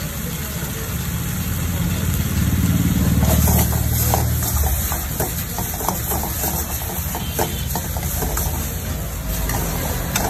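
Wok cooking over a gas burner: a steady low rumble under the pan, with sizzling that grows louder about three seconds in and a steel ladle knocking and scraping against the iron wok many times.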